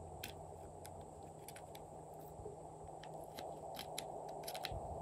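Small plastic applicator scraping and tapping pressed eyeshadow out of a palette's pans: faint, irregular clicks and scratches over a steady low hiss.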